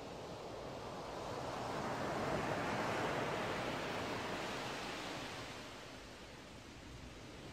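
Ocean surf: a wave swells up and washes out over several seconds, and another begins to build near the end.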